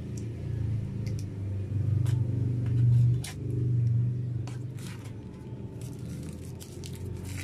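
A steady low rumble that swells about two to four seconds in and then falls back, with a few light clicks of hands handling food and its wrapping.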